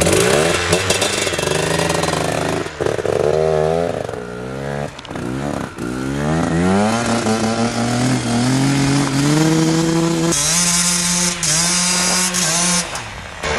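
Koshine 150 two-stroke dirt bike engine revved hard, its pitch repeatedly climbing and dropping, then held high and steady as the bike pulls away. The rear tyre, unstudded stock rubber, is spinning on the snow. A hiss joins the engine for a couple of seconds near the end.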